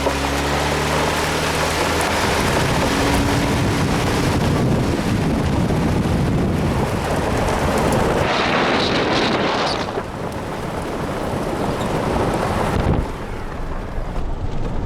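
Vehicle engine running at the start, then a loud, even rush of wind and road noise, as from a moving vehicle, that steps down a little twice in the second half.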